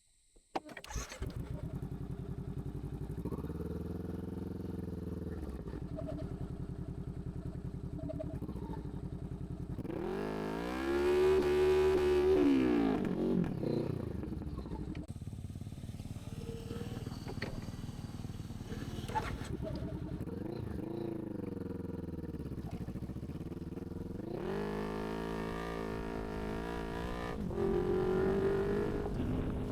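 Motorcycle engine running under way, its pitch rising and falling as the throttle is opened and closed, with stronger revs about a third of the way in and again near the end. It cuts in suddenly about a second in.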